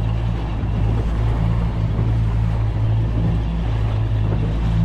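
Boat's outboard motor running steadily under way, with water rushing past the hull.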